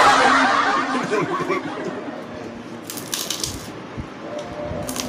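Several people laughing together, loudest at the start and dying away after a second or so. About three seconds in comes a brief crisp crackling.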